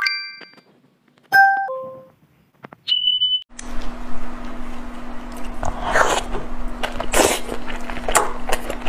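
Short electronic beep and chime sound effects, a falling two-note chime among them, with silence in between. About three and a half seconds in, a steady low hum starts, with scattered soft clicks and crackles over it.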